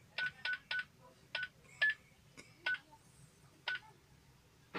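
Short electronic keypad beeps: seven separate beeps at irregular intervals, most on the same pitch and one slightly higher, as buttons are pressed on a device.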